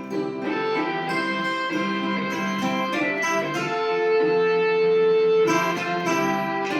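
Viola caipira playing a slow hymn melody in plucked notes, with one note held for about two seconds in the middle.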